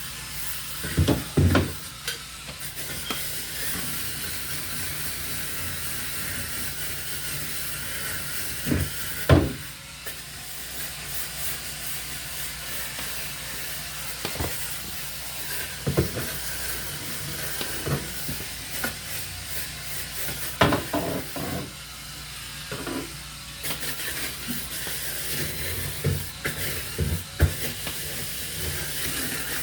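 Electric scrub brush scrubbing a refrigerator's soapy inner surfaces, a steady hissing scrub broken twice briefly, with scattered knocks and clicks as it bumps shelves and walls.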